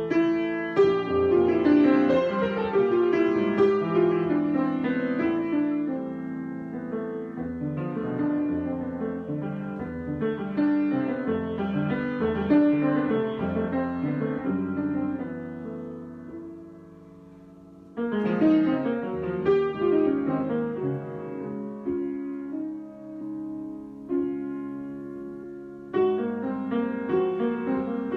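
Solo piano improvisation: phrases of chords and melody notes that ring and decay. The playing thins to a held, fading chord towards the middle, then a new phrase begins a couple of seconds later, and another starts near the end.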